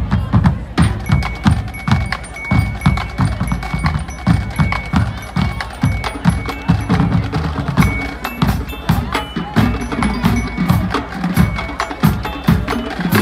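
High school marching band playing a fiery Latin opener, led by a busy percussion groove: quick sharp clicks like a wood block over regular low drum hits.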